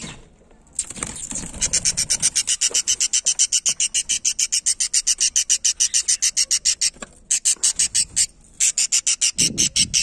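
Budgerigar chick calling from its clay-pot nest as a hand reaches in: a rapid, even run of short high chirps, about eight a second, broken twice briefly near the end.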